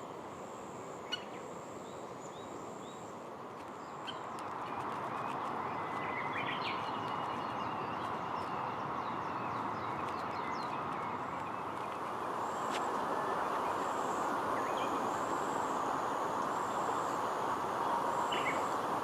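Birds chirping now and then over a steady rushing background noise that grows louder about four seconds in and again near the middle, with a high, thin call repeating in short pulses.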